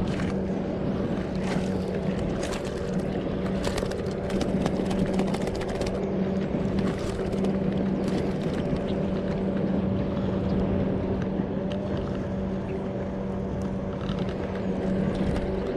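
A steady, even motor hum with higher overtones over a background of water and wind noise, with scattered faint clicks.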